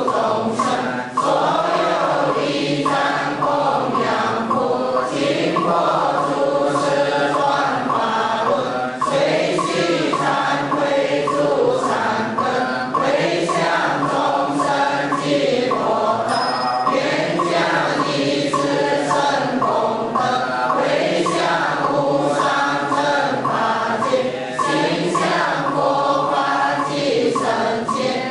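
A group of voices chanting a Buddhist liturgy in unison, held on long notes that shift slowly in pitch.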